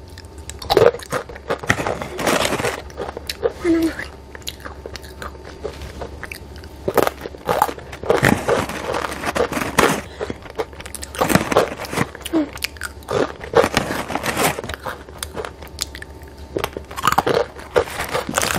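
Dried banana chips being bitten and chewed with loud, irregular crunches, picked up close by a clip-on microphone.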